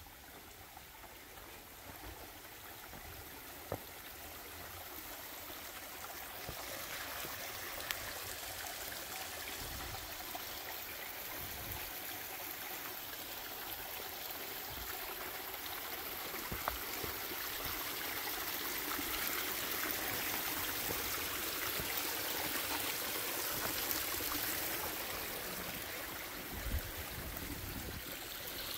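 Mountain stream water rushing and splashing over rocks, a steady rush that grows louder over the first several seconds, with a few sharp knocks scattered through it.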